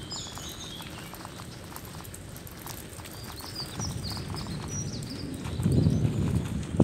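Small birds chirping over the low rumble of a bicycle rolling down a paved lane, with light rattling clicks. The rumble swells louder near the end, and a sharp knock follows.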